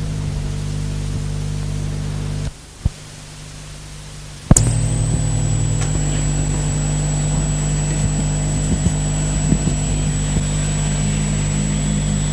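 Buzzing electrical hum and hiss on the sound channel of an old amateur-TV recording replayed from one-inch videotape, with no speech, during the changeover between two stations' transmissions. About two and a half seconds in the sound drops much quieter. About two seconds later a sharp click brings the hum back, now joined by a steady high-pitched whistle.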